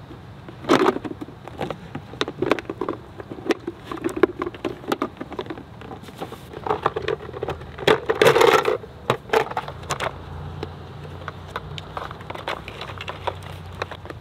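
Hard plastic lid, frame and pole pieces of a collapsible camp trash can being handled and taken apart: an irregular run of clicks, clacks and rustles, loudest in a scraping burst about eight seconds in.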